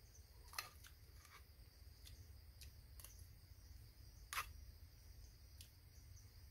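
Near silence: faint steady insect chirring, likely crickets, broken by a handful of small sharp clicks, the two loudest about half a second and four and a half seconds in.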